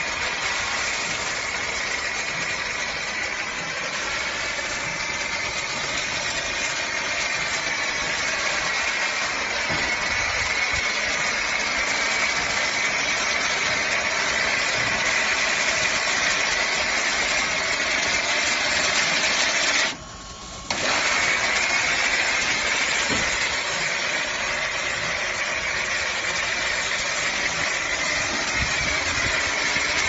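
Pressure washer running steadily while its foam cannon sprays, a continuous hissing spray over the machine's running hum. The sound drops out for under a second about two-thirds of the way through.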